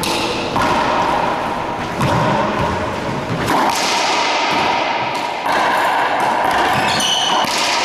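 Racquetball rally in an enclosed court: the sharp cracks of racquets striking the ball and the ball hitting the walls, about six impacts, each echoing off the court. A brief high squeak comes near the end.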